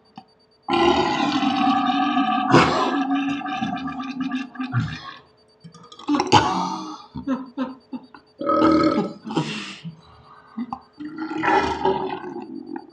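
A man belching: one long, drawn-out burp of about four seconds, then three shorter, rougher burps.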